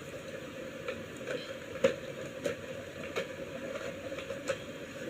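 Coloured pencils handled and scratched on paper: faint, irregular ticks and light scraping over a low hiss.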